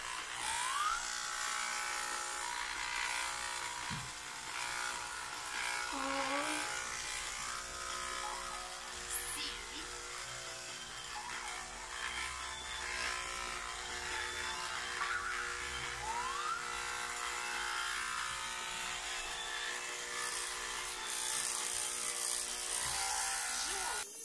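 Corded electric hair clippers buzzing steadily while cutting a boy's hair, the motor's hum stopping just before the end.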